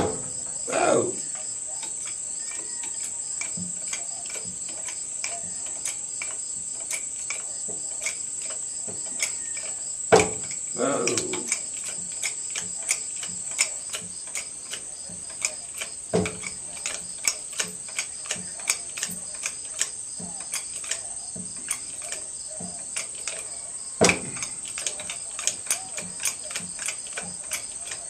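Crickets chirping steadily, with light clicks about once a second and a few louder knocks. Near the start and about ten seconds in, a short sound falls in pitch.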